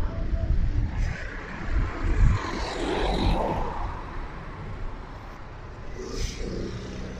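A car passing by on the road, its tyre and engine noise swelling and then fading, with wind buffeting the microphone.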